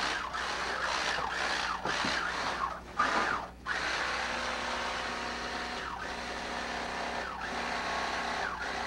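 Chainsaw engine running and being revved, its note sliding down several times as the throttle is let off, with a brief lull about three and a half seconds in.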